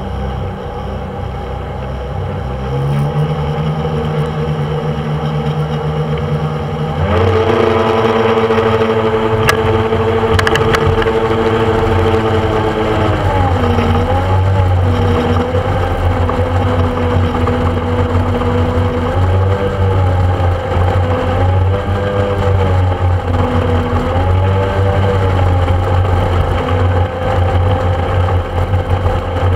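Speedboat engine running under way. About seven seconds in its note jumps sharply higher as it speeds up and holds steady. Through the second half the pitch dips and recovers several times.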